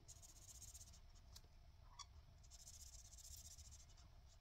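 Faint scratching of a felt-tip marker colouring in on a paper tracker, in two spells of quick strokes.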